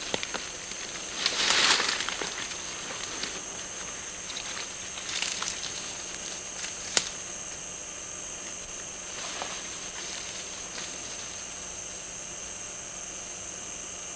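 Rustling of leaves and undergrowth as a hunter moves through the forest, over a steady high hiss, with one sharp click about seven seconds in.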